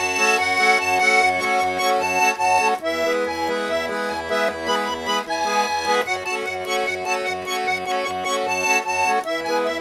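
Russian garmon (button accordion) playing a song's instrumental introduction, sustained chords over a steady pulsing bass, the chord changing about every three seconds.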